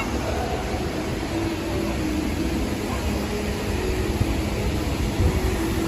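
Steady low road and engine rumble inside a moving vehicle.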